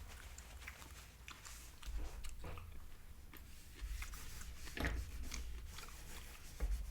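A person chewing and biting food close to the microphone, with scattered small clicks and a few soft low bumps.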